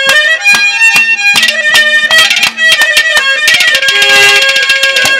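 Instrumental interlude of a Haryanvi ragni ensemble: a held melody line over fast, repeated drum strokes.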